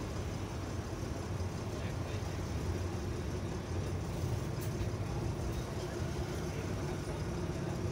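Steady low rumble of background vehicle traffic, with a faint steady hum joining about two and a half seconds in.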